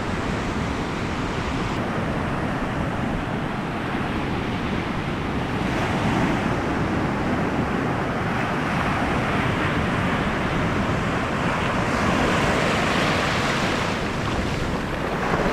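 Rough surf washing and breaking on the beach: a steady rush that swells a little about six and twelve seconds in, with wind buffeting the microphone.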